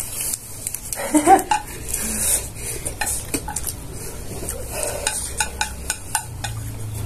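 Cutlery clinking and scraping against plates and bowls while eating, a stream of quick, irregular clicks.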